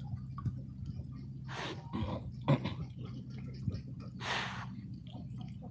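Dogs snuffling and snorting with their noses in a mouse burrow: a few sharp forceful breaths, the longest about four seconds in, over a steady low hum.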